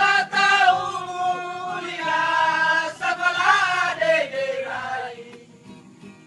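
A group of men singing a chant-like song together in the local language, with long held notes, trailing off near the end.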